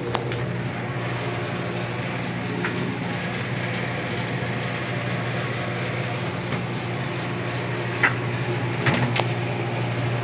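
A steady low mechanical hum with a few scattered knocks and clicks.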